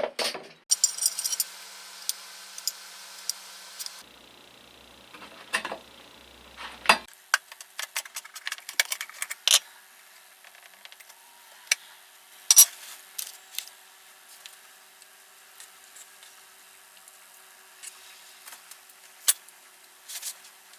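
Small metal parts and tools clinking and tapping as they are handled on a workbench: scattered sharp clicks and clinks, with abrupt cuts between short clips.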